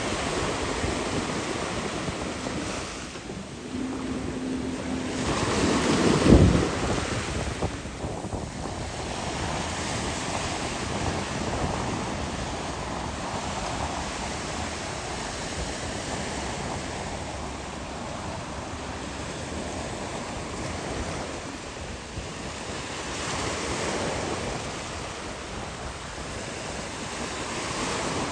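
Wind rushing over the microphone and water splashing while riding a jet ski, with one loud thump about six seconds in.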